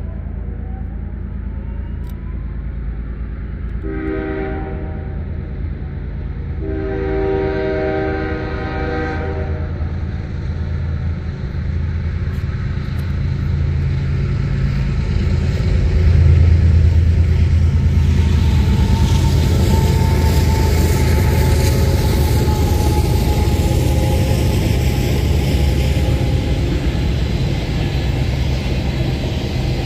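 Canadian Pacific freight train led by GE ES44AC diesel locomotive CP 8845 approaching a level crossing: its air horn sounds a short blast about four seconds in, then a long one about seven seconds in, ending the crossing signal. The locomotive's engine rumble then swells, loudest around sixteen seconds in as it passes, and gives way to steel wheels on rail as tank cars roll by, with a thin steady whine over the wheel noise for several seconds.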